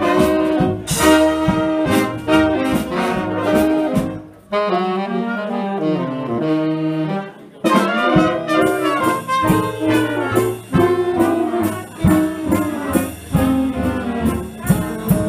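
Swing big band playing live: saxophone section and brass over string bass and drums. About four seconds in the rhythm section drops out and the horns play a short falling line alone, then the full band comes back in with accented hits about three seconds later.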